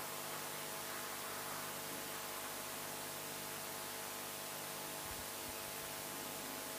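Faint, steady hiss with an even electrical hum underneath: the background noise of a live broadcast audio feed with no commentary on it.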